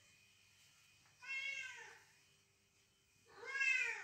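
Cat meowing twice: two drawn-out meows that rise and fall in pitch, about a second in and near the end, the second louder.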